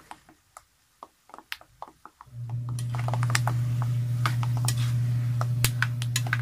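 Metal spatula stirring peanuts frying in oil in a wok: scattered sharp clicks and scrapes of the spatula against the pan and the nuts. A steady low hum starts about two seconds in and is the loudest sound from then on.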